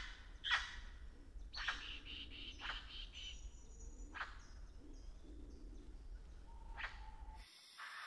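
Birds calling: five sharp calls, each sweeping quickly downward in pitch, spaced a second or more apart, with a brief high whistle behind them and a faint low rumble. Near the end the rumble cuts off abruptly and a different background takes over.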